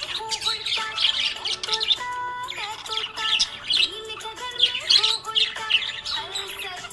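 Pet budgerigars chirping and squawking in quick high calls over background song music.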